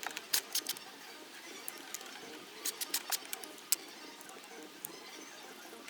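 Irregular light clicks and taps, some in quick clusters, of tools and small metal parts being handled as a cover plate is unscrewed from a gasoline lawn mower's carburetor.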